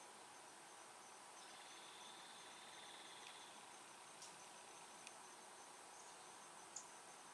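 Faint insect chorus in woodland: crickets chirping in a steady, evenly pulsing rhythm, with a second insect buzzing briefly from about one and a half seconds in. A few faint clicks near the middle and end.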